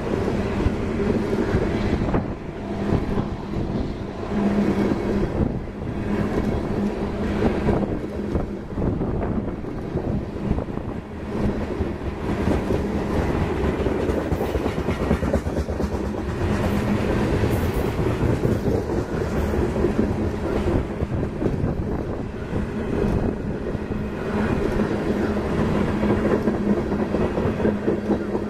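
Freight train of loaded high-sided open-top trash cars rolling past close by: steady wheel-and-rail rumble with repeated clickety-clack of wheels over rail joints and a low hum that comes and goes.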